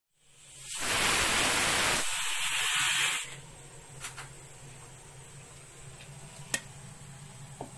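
A loud hiss that lasts about two and a half seconds and cuts off abruptly, followed by a faint steady low hum with a few soft clicks.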